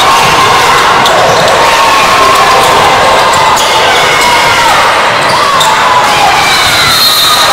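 Basketball game in a gym: a basketball bouncing on the court under a steady din of crowd and player voices calling out. A short high-pitched tone sounds near the end.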